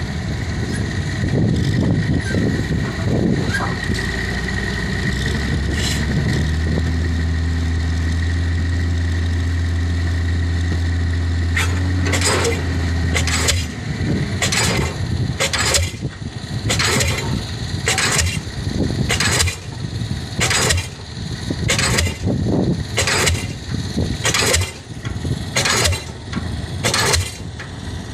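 Piling crane's engine running, holding a steady note for several seconds, then a diesel pile hammer starts firing about halfway through and keeps striking about once a second.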